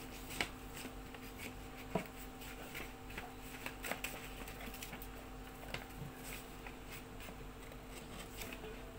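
Scissors cutting through a sheet of paper: irregular faint snips and rustling of the paper, over a steady low hum.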